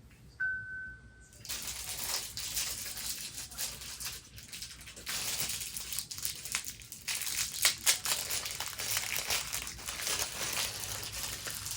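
Plastic wrapping crinkling and crackling continuously as small fidget toys are handled and unwrapped. About half a second in, a short steady high tone sounds for about a second before the crinkling starts.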